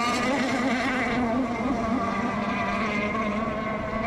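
Radio-controlled racing boats' motors running on the water: a steady buzzing tone with many overtones that wavers slightly in pitch.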